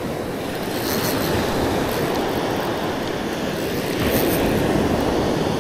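Surf washing up the beach, heard with wind rumbling on the microphone as a steady, even rush.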